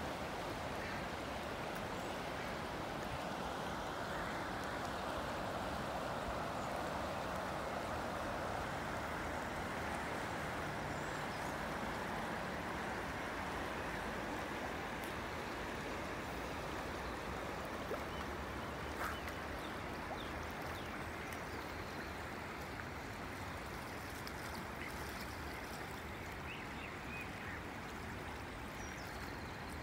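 The River Clyde's fast, rippling current running past the bank: a steady rush of moving water that eases a little toward the end.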